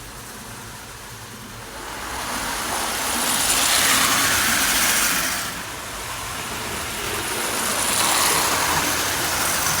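Marx toy electric train running around its track, a wide rattling whir that swells loud as it passes close about three seconds in, fades a little, then swells again near the end.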